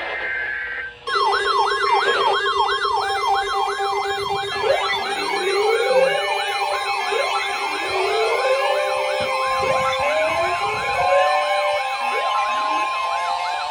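Several electronic emergency-vehicle sirens sounding together: a fast yelp starts about a second in and is soon joined by overlapping slower rising and falling wails.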